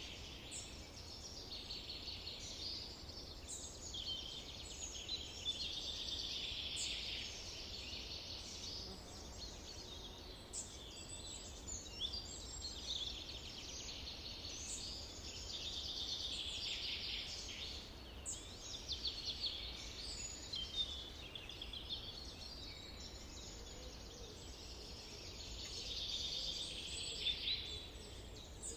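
Several songbirds singing at once, a dense chorus of overlapping high chirps, trills and short whistles with no break.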